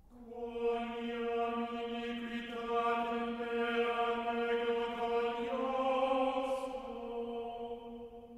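Background music of sung chant: voices holding long, steady notes, moving to a new note about five and a half seconds in and fading near the end.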